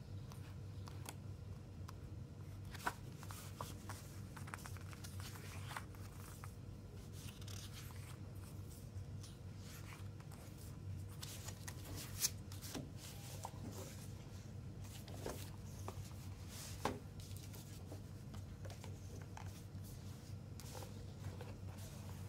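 Paper and card being handled: booklet pages turned, then card sleeves and a disc case slid and set down on crinkled paper, with soft rustles and a few sharper taps. A steady low hum runs underneath.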